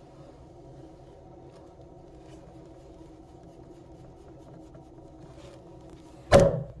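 A steady low hum with a few faint small taps, then one sudden loud thump about six seconds in that dies away within half a second.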